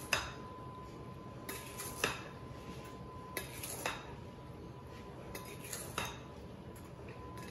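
A stirring utensil knocking and clinking against a glass mixing bowl as halved strawberries and sliced rhubarb are tossed with sugar, in irregular taps about every second.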